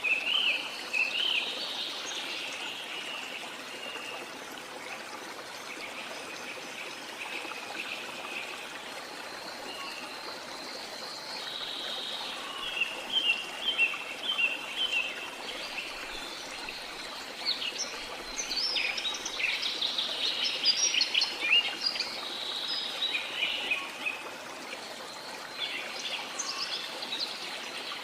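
Small songbirds chirping and twittering in quick, repeated notes over a steady wash of water. The chirping comes in clusters, busiest a little past the middle.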